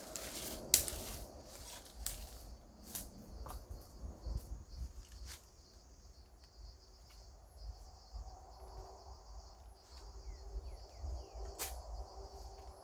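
Insects trilling steadily in a high, even drone, with a few sharp clicks or knocks scattered through it.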